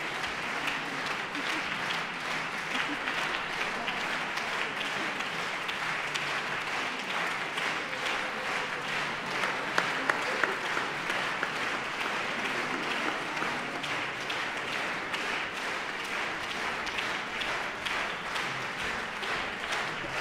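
Audience applauding steadily, a dense even patter of many hands clapping, at the close of a live baroque opera performance.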